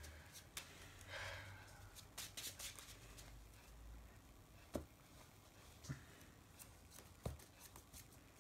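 Near silence: quiet room tone with a few faint sharp clicks spread through it.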